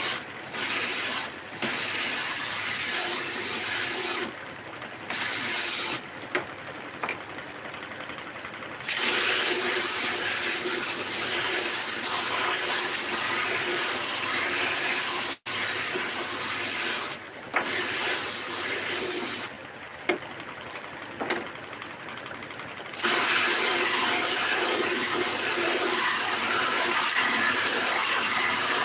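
High-pressure jet stripping paint from wood: a steady hissing rush that drops to a quieter level for a few seconds twice and comes back full.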